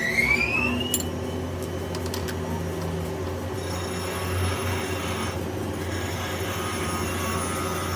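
Workshop machinery running with a steady low hum. In the first second a motor whine rises in pitch and cuts off, followed by a few sharp clicks.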